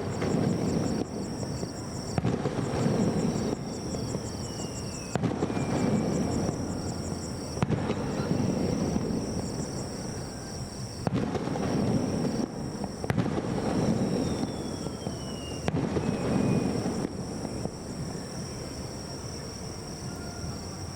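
Aerial firework shells bursting, about seven bangs each trailed by crackling, with a falling whistle heard twice.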